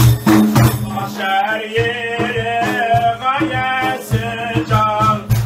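Def frame drums with jingle rings beaten in a steady rhythm, and from about a second in a man's voice sings an ilahi over them in a long, ornamented line.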